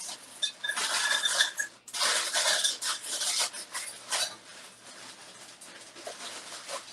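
Kitchen pots and utensils scraping and knocking in two busy stretches of about a second each, the first with a faint metallic ring, then a few lighter clicks.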